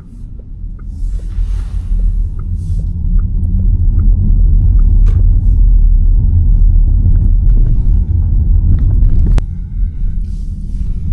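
Low road and tyre rumble from a Škoda Elroq electric car on the move, growing louder over the first few seconds and easing off near the end. Faint regular ticking runs through it, with one sharp click near the end.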